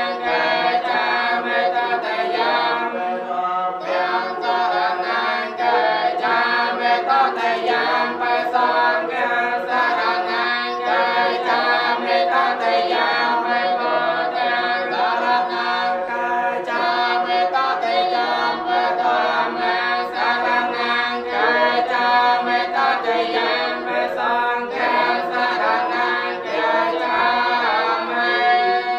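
Group of Theravada Buddhist monks chanting a blessing in unison, a steady drone of many male voices holding long notes.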